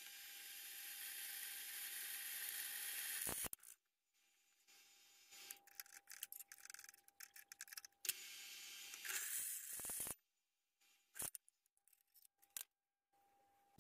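Drill press running, its bit cutting into a steel saw-blade blank, with a faint hiss that swells over the first few seconds. It then drops out abruptly to near silence, broken by a few faint clicks and a short return of the motor hum.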